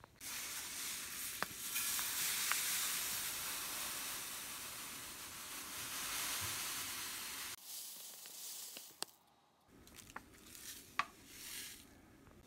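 Salt pouring from a bag into a plastic container: a steady grainy hiss for about seven seconds that stops suddenly, followed by quieter rustling and a few light clicks.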